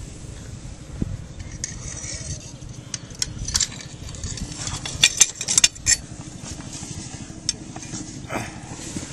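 A steel fire iron clinking and scraping against the firehole and coal in the firebox of a miniature steam locomotive as a freshly lit fire is raked. There is a quick run of sharp clinks about halfway through, over a steady low hum.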